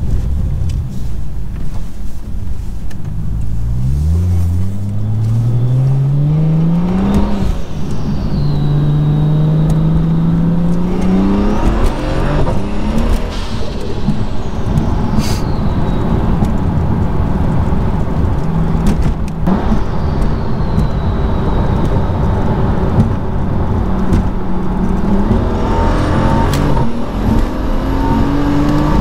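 BMW 435i's turbocharged N55 straight-six, fitted with an open carbon-fibre intake, accelerating. The revs climb in several pulls and drop back at each gear change, the first about seven seconds in.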